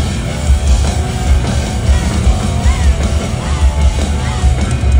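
Loud live rock music from a concert band, heard from the crowd in an arena: guitar-driven and heavy, over a steady drum beat.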